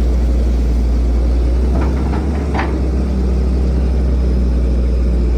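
Heavy construction machinery's diesel engine running steadily with a deep rumble. A few short clicks or knocks come about two seconds in.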